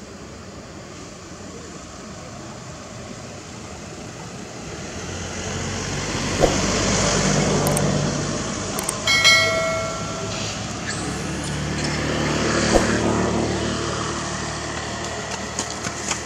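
Motor vehicle engine noise that swells and fades as vehicles pass, twice, with a short high-pitched tone about nine seconds in.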